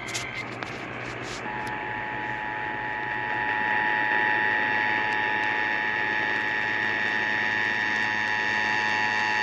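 The Emergency Alert System two-tone attention signal sounding through a radio, a steady dual-pitch tone that swells in loudness over its first couple of seconds and then holds. It is the alarm that comes before an alert's spoken message, here a required monthly test. Just before the tone starts, the tail of a short data-burst tone and a few sharp crackles are heard.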